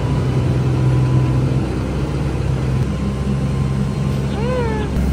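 Boat engine running steadily with an even low hum, as heard aboard a water taxi under way. Near the end a short pitched sound rises and falls once.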